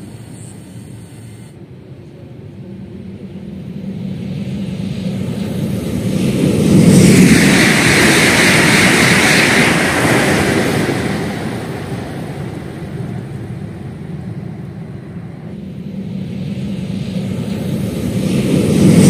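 CRRC KCIC400AF high-speed electric trainset passing at speed: the rush builds, is loudest about seven seconds in, and fades away, then swells again near the end as another pass approaches.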